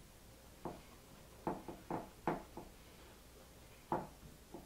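About eight light knocks and taps at irregular intervals, from hands working at the counter and dish, over a steady low hum.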